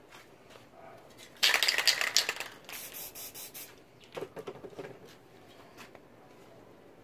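Two bursts of rough hissing and rubbing noise from spray-paint work on a board. A loud one starts about a second and a half in and lasts about two seconds, turning into a smoother hiss. A shorter, crackly one comes about four seconds in.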